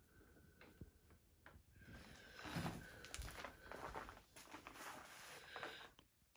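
Faint footsteps and handling noise from a hand-held phone camera being carried through a room: scattered soft knocks and rustles, busiest from about two seconds in.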